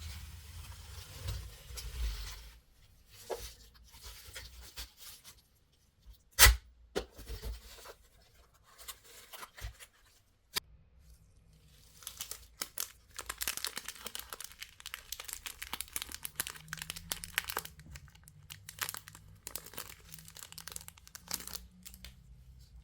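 Plastic candy wrappers being torn open and crinkled, with a single sharp click about six and a half seconds in and dense, rapid crackling through the second half.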